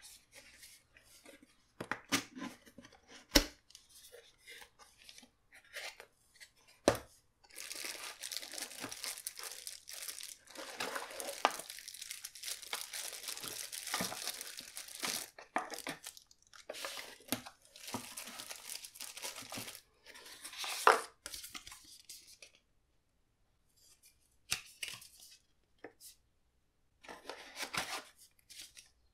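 Cardboard box and plastic bag packaging handled during an unboxing: a few knocks and taps of the box early on, then long stretches of plastic crinkling and rustling from about eight seconds in, with paper rustling near the end.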